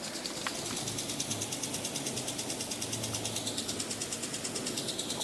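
Lawn sprinkler running with a fast, even ticking. A low hum comes in about a second in and fades out around the four-second mark.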